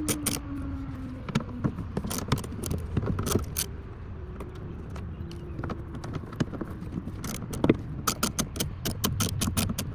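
Hand socket ratchet clicking in short irregular spells, with a quicker regular run of clicks near the end, as the mirror's mounting bolts are loosened.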